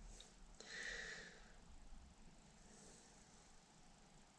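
Near silence: faint room tone with one soft breath about a second in.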